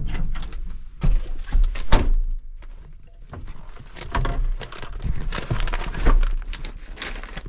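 Irregular knocks, thumps and rustling with bursts of low rumble, like handling noise.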